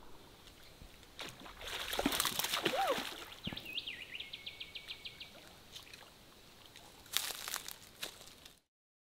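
A hooked barramundi splashing and thrashing at the water's surface, loudest a couple of seconds in, then slapping and flapping on the muddy bank near the end, where the sound cuts off suddenly.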